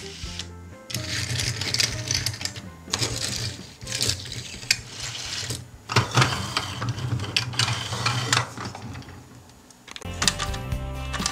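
Small toy cars being set down and rolled on a hard tabletop, with clicks and wheel rattle, over background music.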